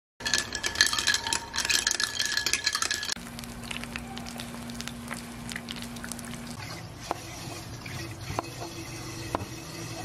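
A straw stirring a matcha milk drink in a glass jar, with quick clinking against the glass. Then the soft sizzle of a pesto egg frying in a pan, and near the end a knife cutting Spam on a cutting board with a few sharp knocks.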